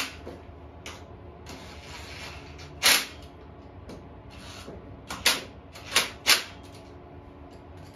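Cordless impact driver tightening the stator bolts on a 150cc GY6 engine in about five short hammering bursts, the last three close together.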